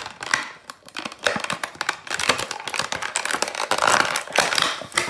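Clear plastic blister packaging crinkling and crackling as hands pry a toy car out of it, with a dense run of crackles from about a second in.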